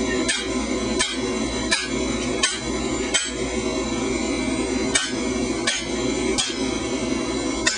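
Heavy hand hammer striking the back of an axe used as a hot set, driving it into a hot iron bloom on an anvil: a steady series of blows about every three-quarters of a second, eight in all, with a pause of nearly two seconds in the middle, over a steady background rush.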